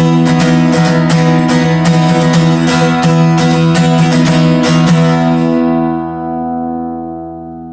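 Bentivolio 1501 all-solid acoustic guitar, Indian rosewood back and sides, strummed in a steady rhythm. The strumming stops about five seconds in and the last chord rings out and fades.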